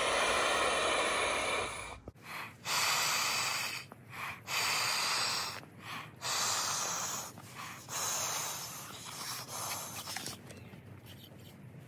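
A person blowing by mouth into the valve of a Klymit Luxe inflatable camping pillow: about five long, breathy blows with short pauses for breath between them, the last ones fainter.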